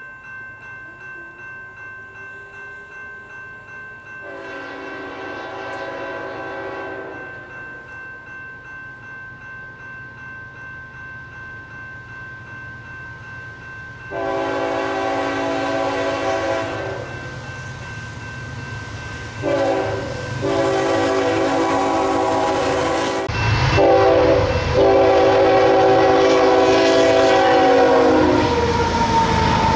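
A GE ET44AC freight locomotive's multi-chime air horn sounds a long blast, then the long, long, short, long grade-crossing signal, louder with each blast as the train nears at track speed. Under it a crossing bell rings with an even beat. Near the end the locomotive passes with a loud rush.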